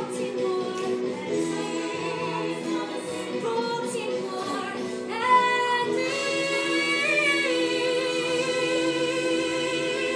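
Female voices singing a musical-theatre number over a musical backing, climbing about five seconds in to a long held final note.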